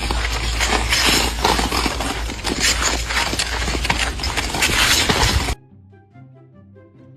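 A loud, rough noise thick with rapid sharp cracks and clatter, with a heavy low rumble, cutting off suddenly about five and a half seconds in. Soft background music follows.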